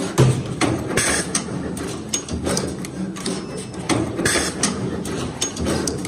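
Automatic eight-wire stripping, cutting and twisting machine cycling: its pneumatic heads clack repeatedly, with a short hiss of air about a second in and again a little past four seconds.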